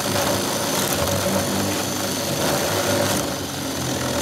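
Porter-Cable cordless drill spinning a paddle bit, boring a counterbore into a wooden board with a steady motor whine and the scraping of the cutting bit.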